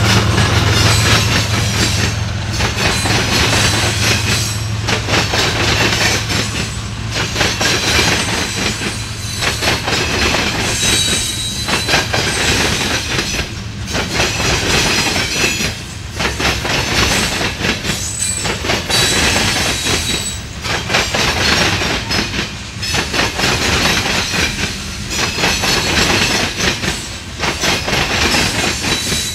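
Empty coal hopper cars rolling past and clattering over rail diamond crossings, the noise swelling and dipping about every two seconds as each car's wheel sets cross, with occasional faint wheel squeal. A GE ES44AC diesel locomotive's low engine drone fades out in the first few seconds.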